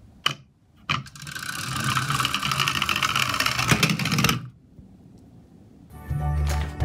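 Two clicks as a small plastic toy dump truck is set down and worked by hand, then the whir of its geared drive as it rolls across a wooden table for about three seconds, growing louder, with a knock near the end before it stops. Background music comes back near the end.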